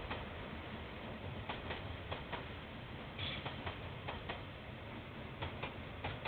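Steady low hiss and hum with short sharp clicks at uneven intervals, often two in quick succession.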